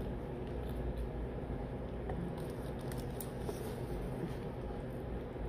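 Faint, soft chewing and small wet mouth clicks from someone eating a soft-bun fish fillet sandwich close to the microphone, over a steady low hum.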